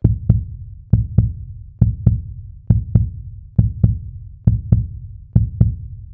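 Background music built on a low double thump like a heartbeat: pairs of deep beats, each with a sharp click at its start, repeating steadily a little under once a second.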